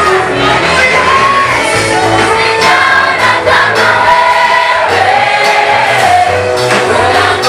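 Gospel choir singing a Swahili praise song in several voices over instrumental accompaniment, loud and steady.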